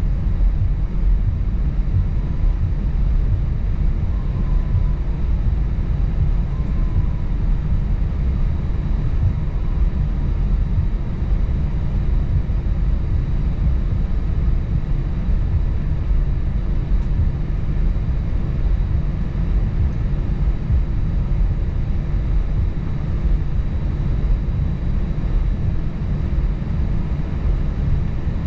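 Steady drone of an Airbus A320-family airliner's jet engines and airflow heard inside the passenger cabin, a deep rumble with faint steady hums above it that does not change.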